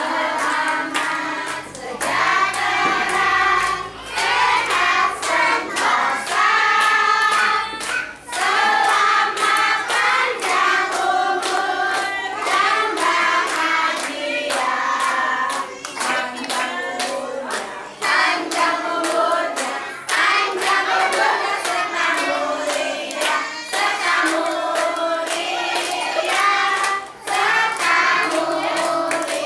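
A group of people, children among them, singing a birthday song together while clapping their hands along in time.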